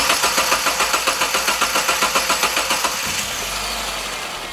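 2012 Subaru Forester engine cranking on the starter in a fast, even rhythm, catching about three seconds in and settling into a steady idle.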